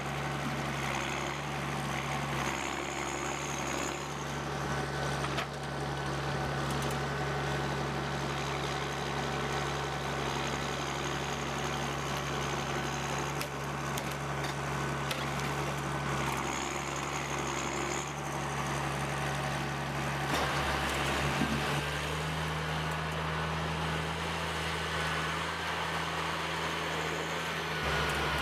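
An engine running steadily, its hum shifting slightly in pitch about three quarters of the way through.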